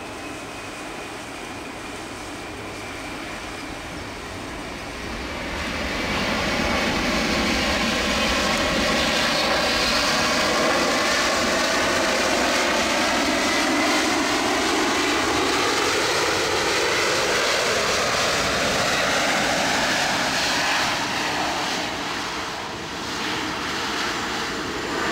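Boeing 747-400's four jet engines during a landing rollout on a wet runway. The engine noise swells about six seconds in and stays loud, with a sweeping set of tones that falls and then rises again as the airliner passes.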